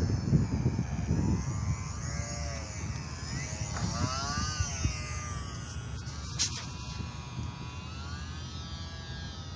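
Electric motor and propeller of an E-flite J-3 Cub radio-controlled model plane whining, its pitch rising and falling as the throttle changes, with wind noise on the microphone.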